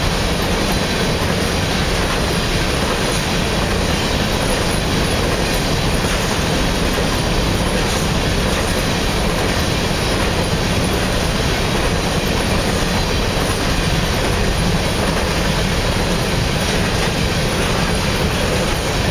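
Empty covered hopper cars of a freight train rolling past, a steady rumble of steel wheels on the rails.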